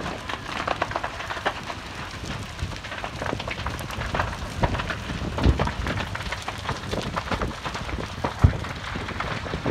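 A burning building: steady fire noise thick with crackling and popping, with two heavier thumps about five and a half and eight and a half seconds in.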